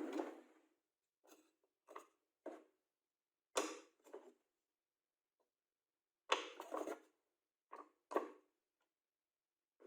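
Workshop handling noises: about ten short knocks and scrapes of wood pieces and tools being picked up and set down, with dead silence between them.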